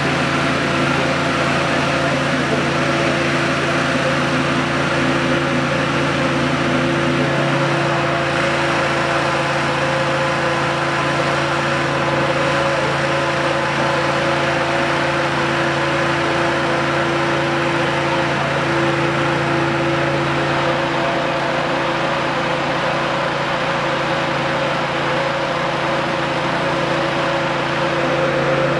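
An engine running steadily at a constant speed: a continuous hum with several fixed pitches. Its deepest part drops away about two-thirds of the way through.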